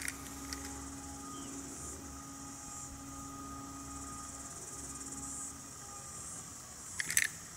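Faint steady background noise: a low hum that stops about five and a half seconds in, with a high-pitched hiss throughout. A couple of light clicks near the end.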